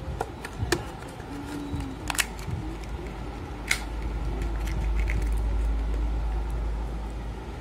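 Handling noise: a few sharp clicks and taps over a low rumble that swells in the middle and fades near the end.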